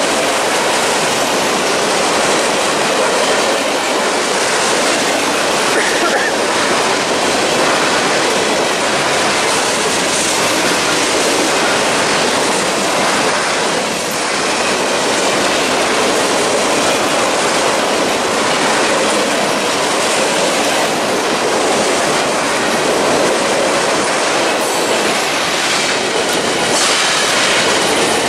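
CSX manifest freight train passing close by, its cars' wheels running loud and steady over the rails with rattling and clatter, easing off slightly about halfway through.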